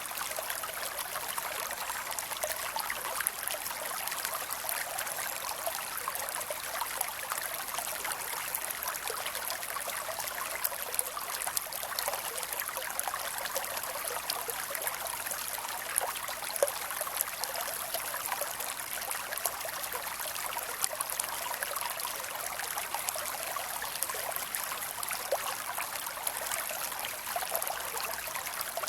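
A creek running steadily over stones, a continuous babble with many small trickles and splashes.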